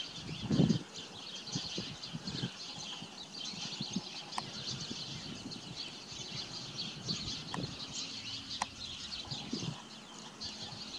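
Small birds chirping and twittering continuously, many short high calls overlapping, with a soft low bump about half a second in.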